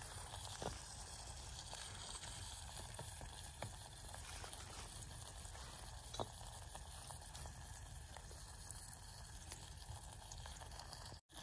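Faint steady sizzling hiss of food cooking in a small steel pot over a homemade aluminum can stove, with a few light ticks.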